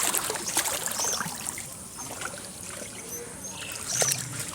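Floodwater trickling and lapping, with scattered small splashes.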